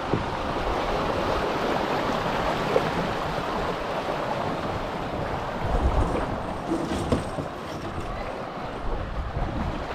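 River water rushing through a small rapid around a boulder, a steady wash of noise. A gust of wind rumbles on the microphone about six seconds in.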